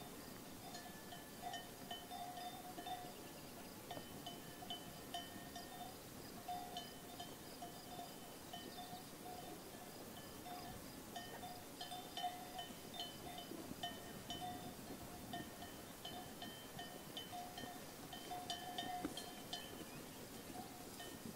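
Bells on a grazing sheep flock clinking and tinkling irregularly and without pause, several ringing tones overlapping.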